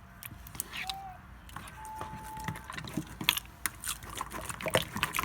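Sticky homemade white-glue-and-borax slime being squished and stretched by hand, giving irregular wet clicks and pops.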